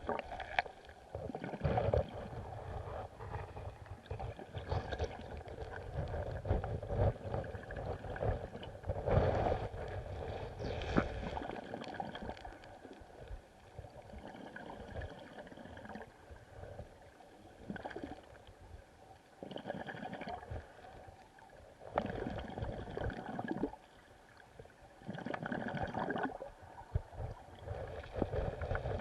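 River water heard from under the surface: uneven rushing and gurgling that swells and fades every few seconds, with scattered small clicks and knocks.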